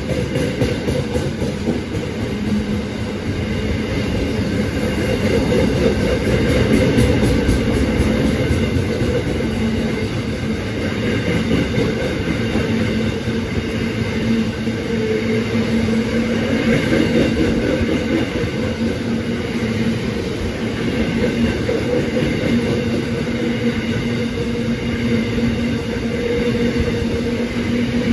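A train running on the rails: a steady rumble of wheels on track with a steady low hum from the train, swelling and easing slowly over the half-minute.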